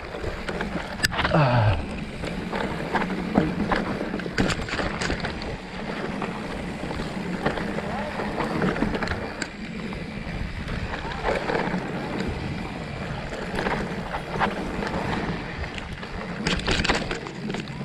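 Mountain bike riding fast down a dry, dusty dirt trail: a steady rush of wind on a handlebar-mounted microphone mixed with tyre noise on dirt, and frequent clicks and rattles as the bike goes over bumps.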